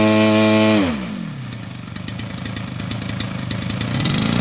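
Zenoah G-62 gas two-stroke engine of a giant-scale RC Corsair, held at a higher setting and then throttled back, its pitch falling smoothly to a low idle about a second in. It idles with a rapid, even firing, then picks up again briefly near the end.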